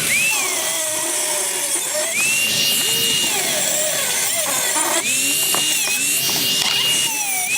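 Handheld electric power tool repeatedly triggered: its motor whines up to full speed, holds for a second or so, then winds down, three times over.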